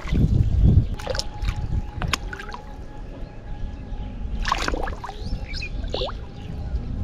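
Water splashing in shallow muddy river water as a hooked catfish thrashes at the surface, loudest in the first second, then quieter lapping with a few brief sharp sounds.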